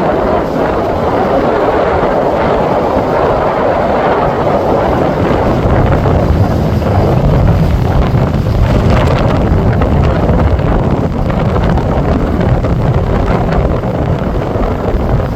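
Strong wind from Hurricane Erin buffeting the microphone over heavy surf at the shore. A loud, steady rushing that turns into a deeper rumble from about six seconds in.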